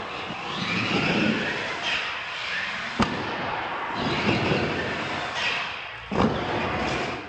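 R/C monster truck running and jumping over wooden ramps in a large hard-floored room, with a sharp crack about three seconds in and a loud thud about six seconds in as the truck crashes and tumbles on a landing.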